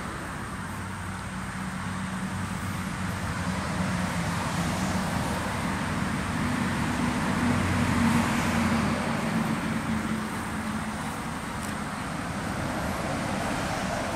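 Honeybees buzzing around a wooden hive entrance, a low hum that climbs a little in pitch for a few seconds around the middle. Under it is a steady wash of passing road traffic that swells and then eases off.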